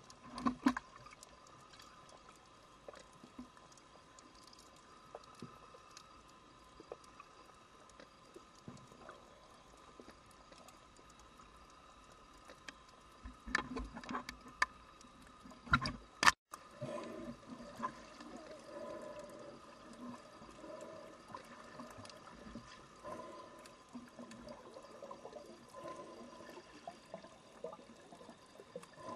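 Muffled underwater sound picked up by a camera below the surface while snorkeling: a faint steady hum with scattered clicks, and louder sloshing bursts about a second in and again around fourteen and sixteen seconds in.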